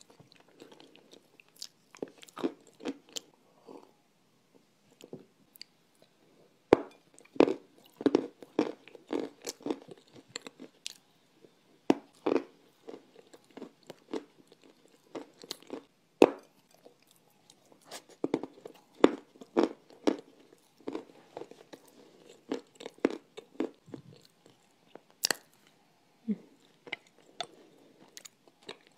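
Dry bars of edible clay crunching as they are bitten and chewed close to a clip-on microphone: many sharp crisp cracks with softer chewing between, thickest through the middle.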